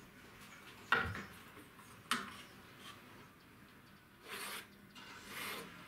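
Two sharp knocks as a steel ruler and wooden board are laid on the table saw's top, then two short scratching strokes of a line being marked on the wood along the ruler.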